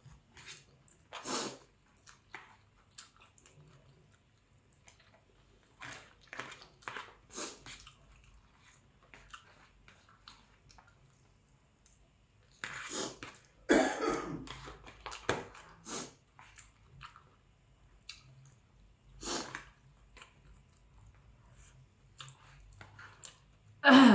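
Close eating sounds of a person eating noodles: chewing and wet mouth noises with scattered short clicks, and a louder burst of noise about halfway through.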